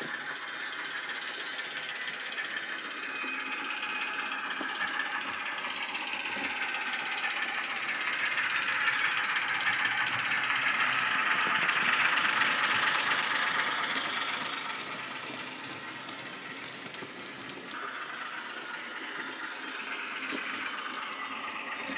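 Model Ruston PWM diesel shunter running, its sound decoder playing a Wheeltappers Ruston diesel engine sound through the small onboard speaker. The sound grows louder as the model comes close about halfway through, then fades as it moves away.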